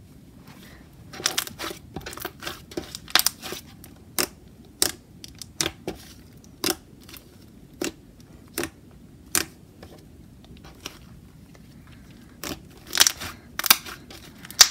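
Thick taro milk tea slime being pressed and folded by hand, giving off sharp, irregular clicky pops about once or twice a second. The pops come thicker about a second in and again near the end.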